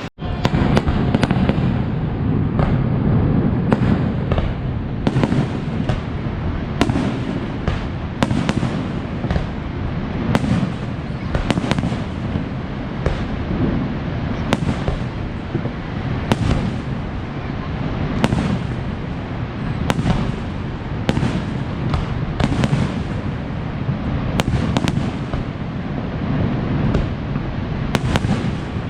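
Fireworks display: a fast, irregular run of sharp bangs and crackles, often several a second, over a steady low roar.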